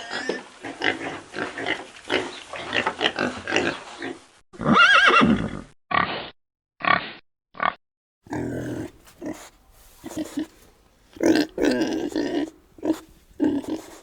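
Pigs grunting in a string of separate recordings, with a louder high call rising and falling about five seconds in, three short grunts after it, and more grunting in the last part.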